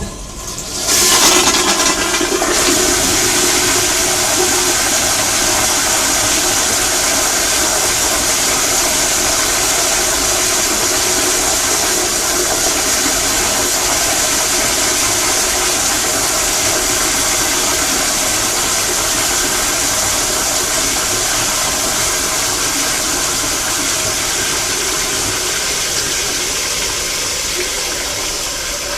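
Toilet flushing: a click at the start, a surge of rushing water about a second in, then a long steady rush of water that keeps going for nearly half a minute, easing slightly near the end.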